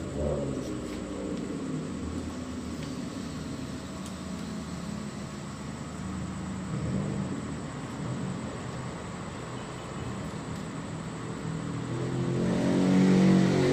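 A low, steady motor hum with several pitched tones, growing louder near the end.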